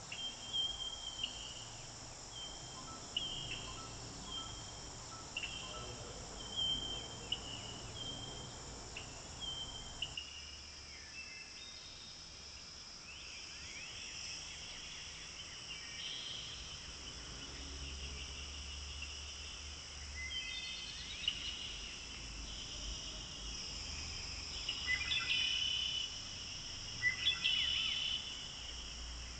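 Outdoor ambience of a steady high insect drone, with short chirps repeating about once a second. About a third of the way in the background changes abruptly, and scattered bird chirps and quick sweeping calls follow, loudest near the end.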